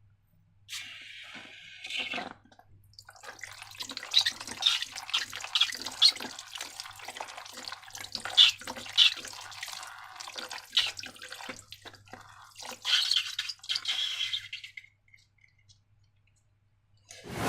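Wet, sticky slime squelching, with a dense run of short clicks and pops from a few seconds in until near the end.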